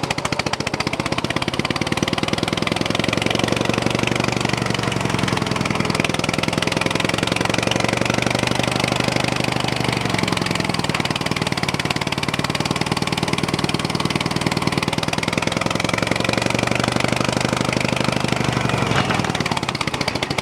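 Old John Deere tractor's four-cylinder engine running roughly with an uneven firing beat, misfiring on some cylinders; the owner puts this down to low voltage at the coil. Its note shifts about halfway through and changes again near the end.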